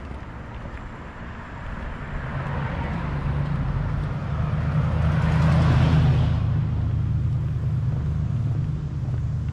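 A motor vehicle passing on the street: its tyre and engine noise grows, is loudest about six seconds in, then falls away quickly, while a low engine drone lingers.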